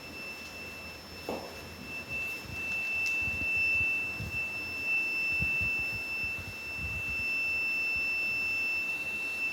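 A fire-alarm project's electronic buzzer sounding one steady, unbroken high-pitched tone, signalling an alarm condition. A few faint low knocks sound under it, one a little louder about a second in.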